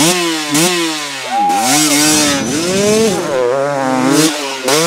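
GasGas MC250 two-stroke motocross bike being ridden, its engine revving up and falling off several times as the rider works the throttle.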